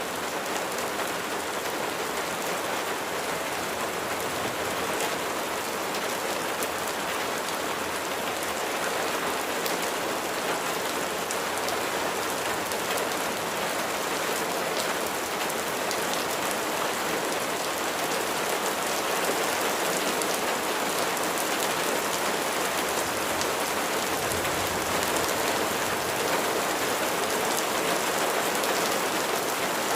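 Steady rainfall, drops pattering densely on a surface, with a brief low rumble about 24 seconds in.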